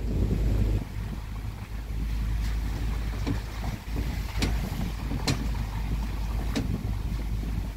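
A vehicle driving slowly on a wet, potholed gravel road, heard from inside the cab: a steady low rumble of engine and tyres, with about five sharp clicks scattered through the middle.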